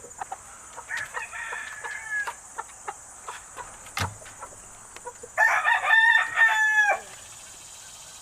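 Game rooster crowing, one loud crow about a second and a half long starting around five seconds in, with a fainter rooster call about a second in.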